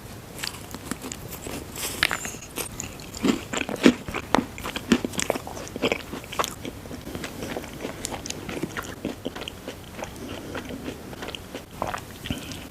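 Close-miked biting and chewing of a chocolate-and-marshmallow candy: irregular crunches and wet mouth clicks.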